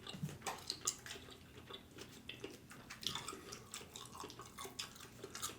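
Faint, wet chewing with lip smacks and short mouth clicks, several a second, from someone eating barbecued rib meat close to the microphone.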